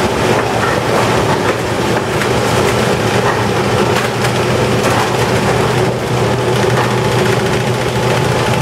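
Steady drone and hum of processing machinery aboard a factory ship, with light clatter and knocks of metal pans being handled throughout.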